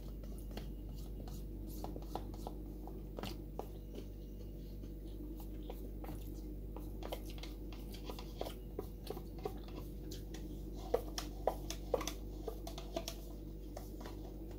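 Eating sounds: chopsticks clicking and scraping against a cup of instant noodles as the last noodles are scooped into the mouth, with soft chewing. The small clicks come scattered throughout and are busiest in the last few seconds, over a steady low hum.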